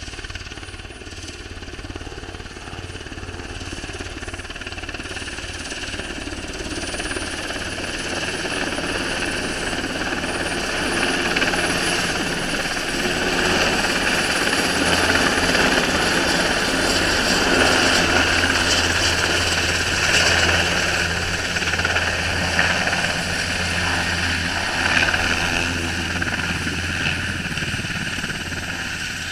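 Military transport helicopter approaching and coming in low overhead to land: steady rotor and turbine noise that grows louder through the first half, peaks about halfway and then holds as it sets down.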